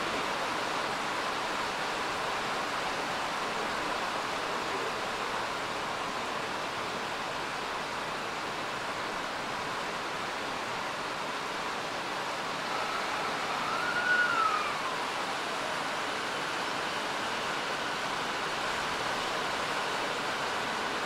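Heavy downpour of rain falling steadily. A little past the middle, a single whistle-like tone sounds for about two seconds, rising then falling in pitch.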